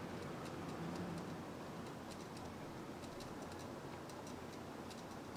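Quiet room tone: a steady low hum with faint, irregular high clicks, several a second.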